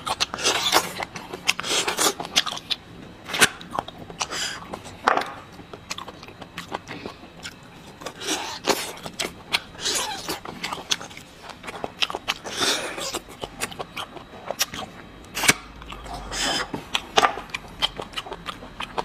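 Close-miked slurping and sucking of marrow out of sauced bone pieces, with wet chewing and lip smacks in irregular bursts throughout.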